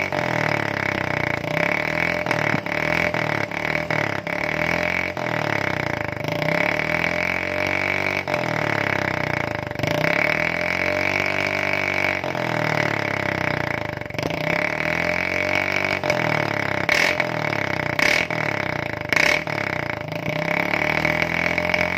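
Yamaha Mio Soul GT scooter's engine running through its drilled-out (bobok) aftermarket exhaust, re-worked for a louder note, being blipped over and over, the pitch rising and falling every couple of seconds. Three sharp cracks come a few seconds before the end.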